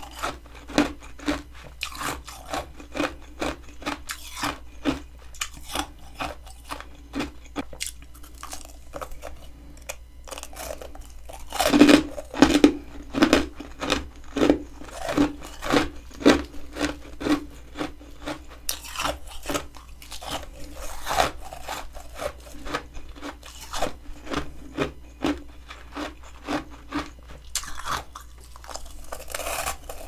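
Humidifier-grown freezer frost being bitten and chewed close to the microphone: a steady run of crisp, flaky crunches, about two a second, with a louder burst of crunching a little under halfway through.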